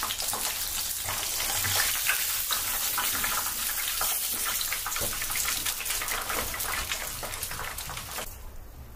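Hot oil sizzling with a dense, steady crackle, the sound of deep-frying. It drops away sharply about eight seconds in.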